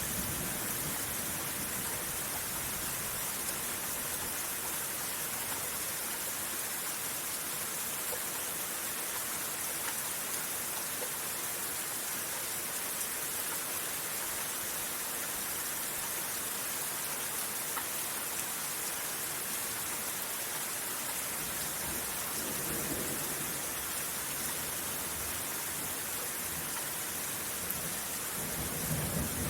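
Steady rain falling, an even hiss, with low rolls of thunder rumbling faintly about two-thirds of the way in and again at the end.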